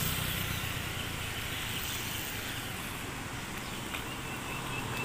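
Road traffic: a steady low rumble of passing cars, with one vehicle fading away over the first second.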